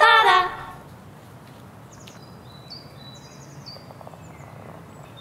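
Music cuts off in the first half second, then quiet outdoor background with a few short, high bird chirps.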